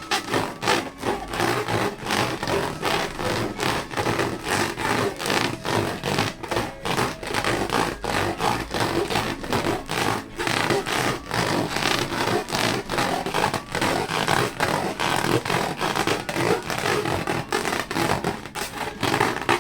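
Rubber balloons being squeezed and rubbed by hand: a dense, continuous run of quick rubbing and scraping strokes that stops suddenly at the end.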